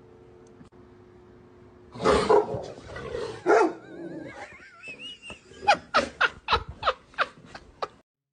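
A dog barking: two loud, rough barks, a wavering high whine, then a quick run of about eight sharp barks, roughly four a second, that cut off suddenly.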